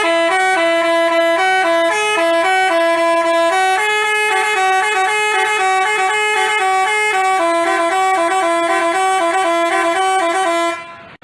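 Bus telolet horn, a Basuri-type multi-tone musical air horn, playing a quick melody of short stepping notes, then cutting off suddenly near the end.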